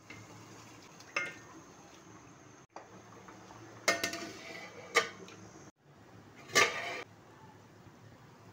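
Wooden spatula stirring curry in an aluminium pot and knocking against its side four times, each knock ringing briefly, over a faint steady background hiss.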